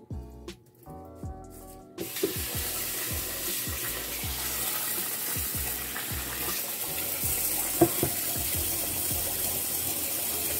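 Rinse water trickling from a rice cooker's inner pot into the sink. About two seconds in, the kitchen tap comes on and runs a steady stream of water into the pot of washed rice.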